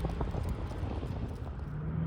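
Road traffic noise with wind on the microphone, a few light knocks early on a passing vehicle's tyres, and a truck engine's low drone coming in near the end.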